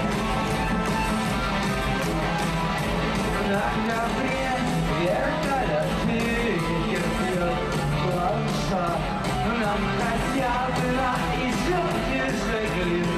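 A rock band playing live through an arena sound system, electric guitars over a steady drumbeat, recorded from within the audience.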